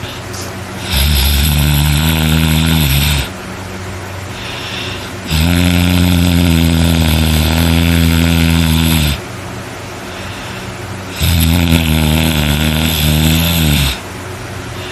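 A person snoring loudly and hard: three long snores, each lasting two to four seconds and about five seconds apart, with a low droning pitch that drops as each one ends.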